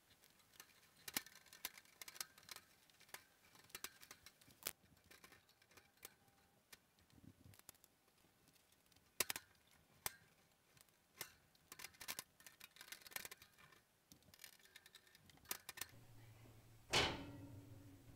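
Metal wire shelf clinking and rattling against a metal cabinet frame and angle brackets as it is worked into place: a string of light clicks and taps, with one louder knock near the end.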